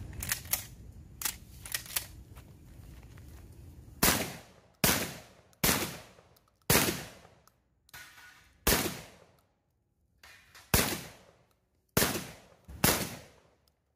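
Benelli M2 SP semi-automatic shotgun firing a rapid string of about eight loud shots, each with a short echoing tail, plus two fainter reports among them. A few sharp clicks of the gun being handled come in the first two seconds, before the firing starts.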